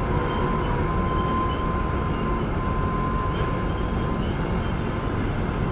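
Union Pacific diesel-electric locomotives lugging a manifest freight train: a steady heavy rumble, with a thin steady whine and short, broken higher squeals above it.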